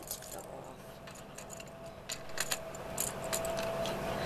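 Plastic LEGO pieces being handled, giving light, irregular clicks and taps.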